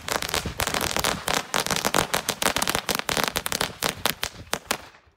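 A bundle of small firecrackers going off as a rapid crackling string of pops, thinning to a few last bangs near the end.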